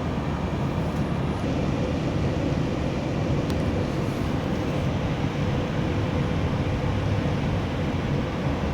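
Light-rail train in motion, heard from inside the car: a steady rumble of the car running on the track, with a faint steady hum joining in about a second and a half in.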